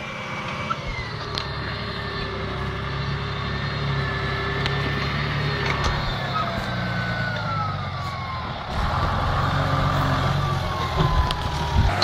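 Claas Ares tractor's John Deere six-cylinder diesel running under ploughing load, pulling a Rabewerk reversible plough, growing louder as it comes near, with a high whine that slowly falls in pitch. The tractor is being tested with its Quadrishift gearbox just repaired.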